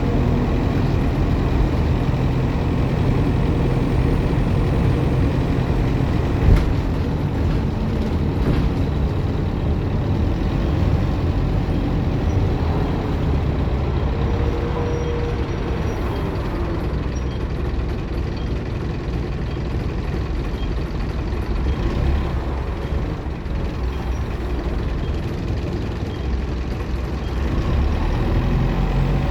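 Optare Solo M950 single-deck bus running, its diesel engine and road noise steady throughout, with a sharp click about six seconds in and a faint whine that rises and falls around the middle, the turbocharger whine this bus is known for.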